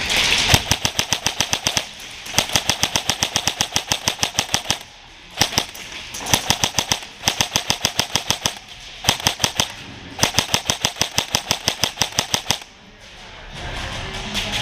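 Airsoft electric rifle, a KWA Ronin T6, firing in several rapid strings of about ten shots a second with short pauses between them, plus one single shot about five seconds in.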